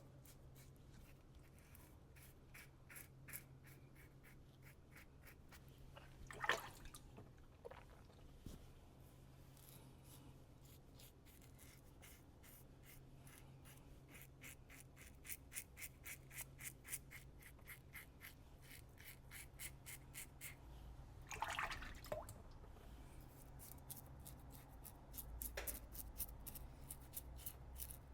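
Safety razor scraping through lathered stubble: runs of short, quick scratchy strokes, with two louder brief sounds, about six seconds in and again near twenty-one seconds.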